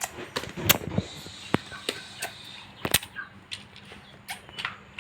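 Scattered sharp clicks and knocks at irregular intervals, as of small objects being handled and knocked together. The loudest come about a second in and near the three-second mark.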